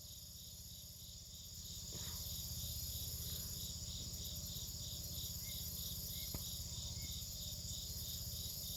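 Insects chirping outdoors in a steady, even pulse about twice a second, over a continuous high buzz, with a low steady hum underneath.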